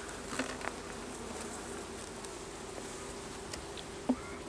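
Honeybees buzzing steadily at an open hive, with a couple of short light knocks.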